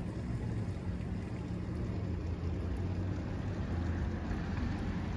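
Water gushing from a sheared fire hydrant and raining down around it: a steady rushing hiss over a deep, continuous rumble.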